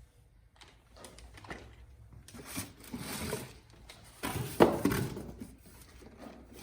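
Bike-rack parts being handled and set down while unpacked from the box: scattered knocks and clatter, the loudest knock about four and a half seconds in.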